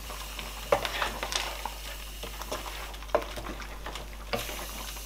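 Pot of pepper soup bubbling at a boil while a wooden spoon stirs through it. Irregular sharp knocks and splashes come as the spoon moves, the loudest about a second in.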